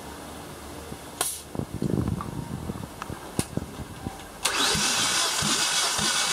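Electric starter cranking a Kia 1.6 G4FC four-cylinder engine with a compression gauge fitted, during a compression test. There is a click about a second in, then a rhythm of cranking strokes, joined about four and a half seconds in by a loud, steady rushing noise.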